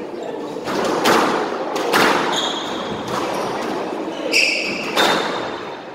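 A squash rally: the ball struck by rackets and hitting the walls with sharp, echoing smacks, several of them, and rubber-soled court shoes squeaking briefly on the wooden floor twice.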